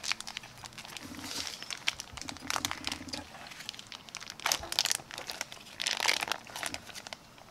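Plastic bacon package being peeled open by hand: the film crinkles and tears in irregular bursts, loudest in two rips a little past the middle.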